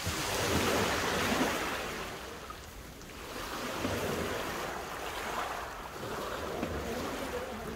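Small sea waves washing in over a shingle beach, swelling loudest in the first couple of seconds, easing, then surging again about four seconds in. Wind buffets the microphone underneath.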